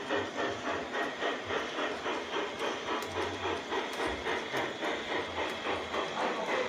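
LGB garden-scale model steam locomotive running slowly, its sound unit giving an even, hissing chuff about three times a second.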